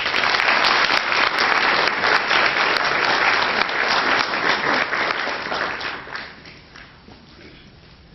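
Audience applauding, starting at full strength and fading out about six to seven seconds in.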